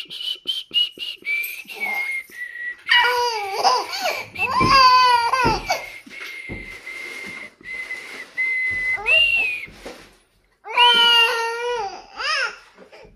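A baby vocalising: thin, high squeals interrupted by short breaks, with louder wavering calls that sound like baby laughter or babbling about three to five seconds in and again near the end.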